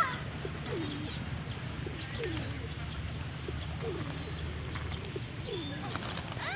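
Birds calling: a string of short, low calls, each falling in pitch, about one a second, over a steady low hum.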